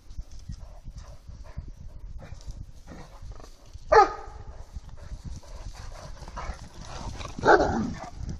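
Great Danes at play: two single barks, a short sharp one about four seconds in and a longer one near the end, over a steady patter of paw thuds on the ground.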